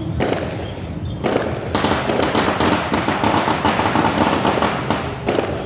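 A string of firecrackers going off in a fast run of sharp cracks. A few short bursts come first, then a dense crackling that starts about a second and a half in and stops shortly before the end.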